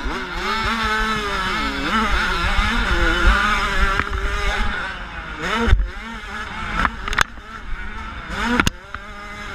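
A motocross bike's engine heard from a camera mounted on the bike, revving up and falling back again and again with throttle and gear changes. Three sharp knocks cut through in the second half, the loudest a little past halfway.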